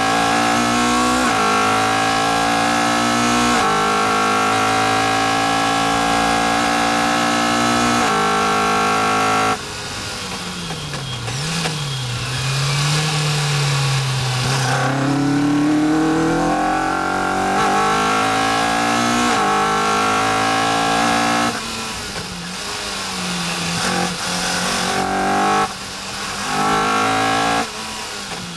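Caterham R400 four-cylinder engine heard from the open cockpit, revving hard with the pitch climbing in steps through gear changes. About nine and a half seconds in it drops off sharply as the driver lifts for a corner, runs lower and uneven through it, then pulls up in pitch again with more gear changes.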